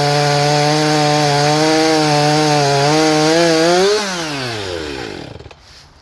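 Jonsered CS2152 two-stroke gas chainsaw cutting wood under load, its pitch wavering. About four seconds in it revs up briefly, then is switched off and winds down to a stop.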